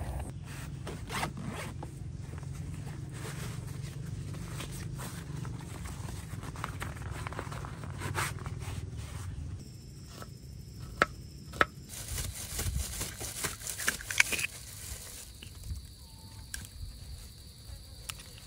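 A zipper being pulled and gear rustling and scraping over a low rumble. Midway the rumble stops, leaving a steady high insect chirring with a few sharp clicks.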